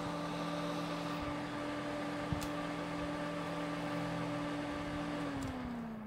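Corsair ML120 Pro magnetic-levitation 120 mm fan running below 900 rpm, giving a steady whistle over its airflow hiss, with a short click about two seconds in. About five seconds in, the whistle starts dropping in pitch as the fan slows. The whistle is a fault of this unit, which the owner takes for a warranty replacement.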